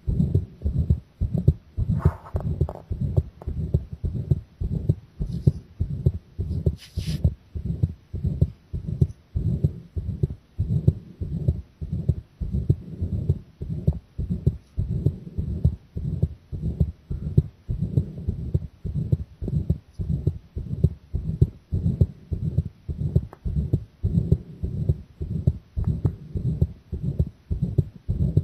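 A woman's heartbeat heard close up at the chest, pounding in a quick, steady rhythm of about one and a half beats a second. A few brief scratchy noises come in early on.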